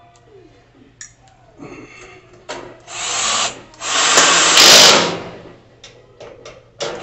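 A power drill fitted with a screwdriver bit runs a screw into the grill's side-burner knob faceplate in two short runs. The first lasts about a second, beginning partway through; the second, just after, is longer and louder, lasting about a second and a half.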